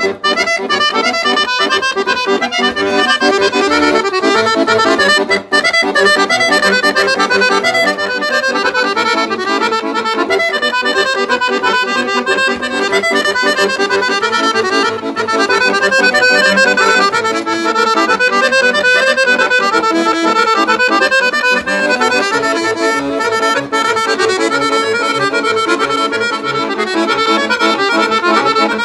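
Piano accordion played solo: a continuous melody on the right-hand keyboard over a repeating lower accompaniment. There is a brief break about five seconds in.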